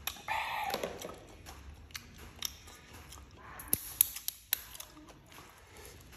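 A person eating: a short, loud mouth sound near the start, then quieter chewing with a few sharp clicks about halfway through.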